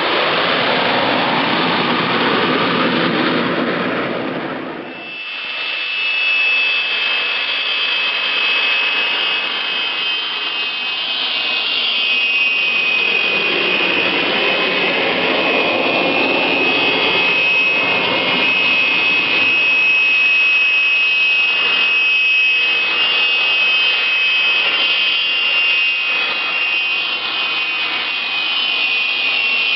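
Jet noise from a formation of Aermacchi MB-339 PAN jets passing overhead, cut off about five seconds in. After that, the steady high whine of an MB-339's Rolls-Royce Viper turbojet running on the ground at close range.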